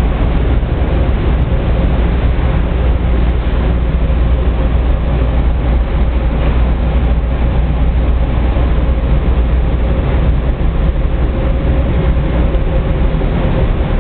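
HiMEC VERT A CON 90-degree vertical conveyor with a cleated plastic modular belt running: a steady mechanical rumble with a faint steady hum.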